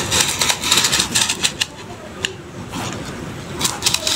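Utility knife blade drawn along a ruler, slicing through cardboard in a run of short scratchy strokes. The strokes pause for about two seconds in the middle and start again near the end.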